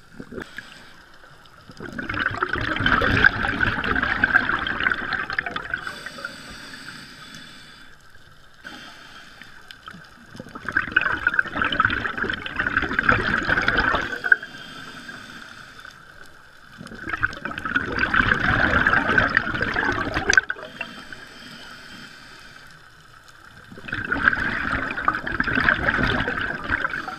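A scuba diver's regulator exhaling underwater: four bursts of bubbles, each three to four seconds long and about seven seconds apart, the rhythm of slow, steady breathing, with quieter stretches between.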